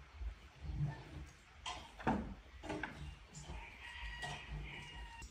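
Outdoor yard ambience with a low wind rumble and a few sharp knocks, and a distant animal call held for about a second near the end.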